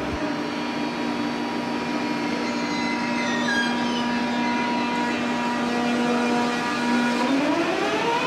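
ICE 3 high-speed train's electric traction equipment humming steadily at the platform. About seven seconds in, a whine starts to rise in pitch as the train begins to accelerate.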